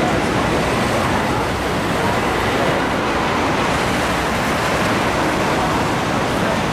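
Steady road and wind noise of a moving car.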